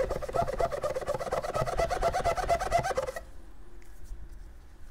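Nitrile-gloved fingers rubbing hard on a small black hexagonal piece, squeaking in a fast chattering run of about a dozen squeaks a second that stops suddenly about three seconds in.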